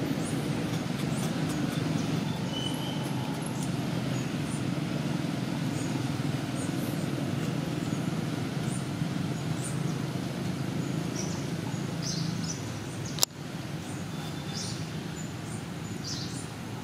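Outdoor ambience: a steady low rumble with short, high bird chirps scattered throughout. The rumble stops about three-quarters of the way through, right before a single sharp click.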